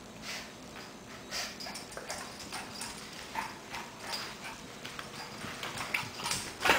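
Shih Tzu puppy's claws clicking and skittering on a ceramic tile floor in quick, irregular taps as she runs and spins.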